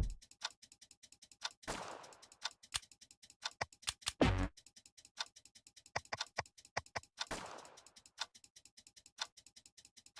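Ticking-clock countdown sound effect, a steady run of sharp ticks, with a whooshing swell about two seconds in, a low hit about four seconds in, and another whoosh about seven seconds in.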